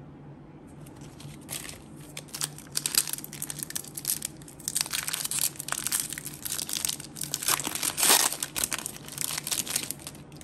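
Foil Pokémon TCG booster pack wrapper crinkling and tearing as it is pulled open by hand, a run of sharp crackles from about a second and a half in until near the end.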